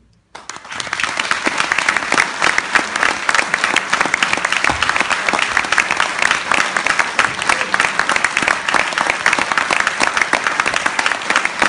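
Audience applauding, breaking out about half a second in after a brief silence and holding steady and full.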